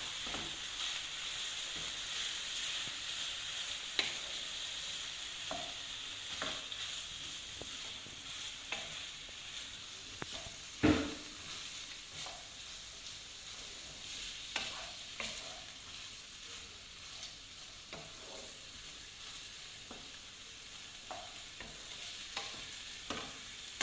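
Diced chicken and minced meat sizzling in oil in a frying pan, with a steady hiss that eases a little over time. A utensil stirring the filling knocks against the pan now and then, loudest about eleven seconds in.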